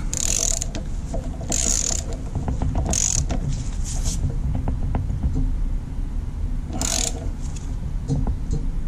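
Ratcheting torque wrench clicking in about five short bursts as it is swung back and forth, driving a motor-mount bolt coated in red threadlocker into a partly sheared threaded hole in the engine block. The bolt will not take torque and turns in the damaged threads.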